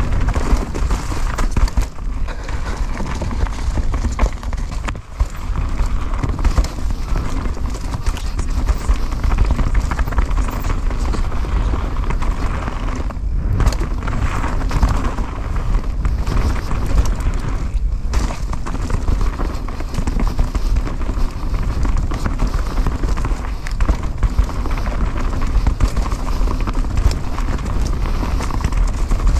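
Mountain bike riding fast down a dirt forest trail, heard from a bike-mounted camera: tyres running over dirt and leaves with constant rattling and knocking of the bike over bumps, under a steady rumble of wind noise.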